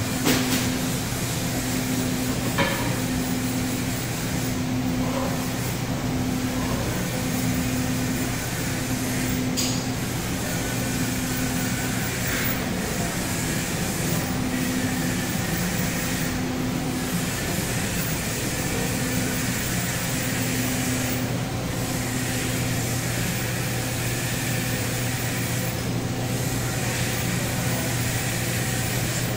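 Steady machine hum of a Panasonic robotic welding cell as its six-axis arm steps the torch point to point over the workpiece, with no welding arc. A low tone in the hum pulses on and off about once a second, and there are a couple of short clicks near the start.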